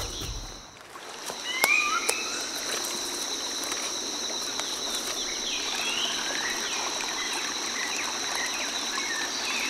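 Nature ambience: a steady high-pitched insect drone with scattered bird chirps, and a couple of sharp clicks about two seconds in.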